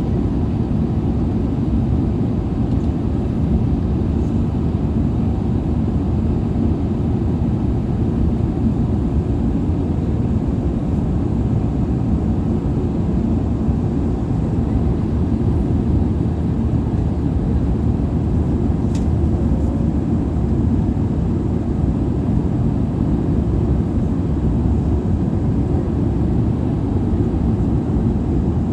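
Steady low rumble of an Airbus A380-800's engines and rushing air, heard from inside the passenger cabin.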